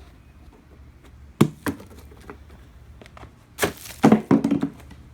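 Hard knocks and clattering as car coolant reservoir parts are handled: a single sharp knock about a second and a half in, then a short run of louder knocks and rattling near the end.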